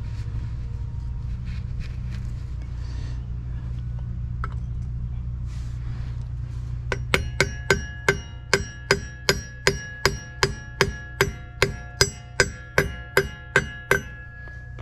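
A ball-peen hammer tapping the metal grease dust cap onto the front wheel hub of a 1963 VW Beetle, seating it over the wheel bearing. About twenty light, evenly paced metallic taps, two or three a second, each ringing briefly, start about halfway through and stop just before the end.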